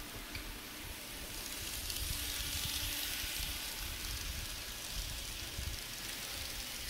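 Model trains running on a tabletop layout: a steady rolling hiss of small wheels on rails with a low rumble beneath, swelling about two to four seconds in as a freight train passes close.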